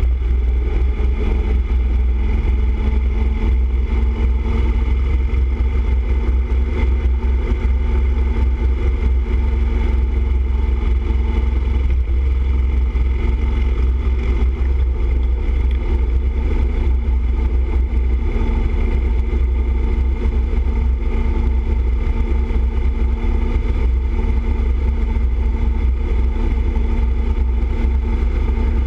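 Motorcycle cruising at steady highway speed: a constant heavy low rumble of wind and road noise with a steady engine hum.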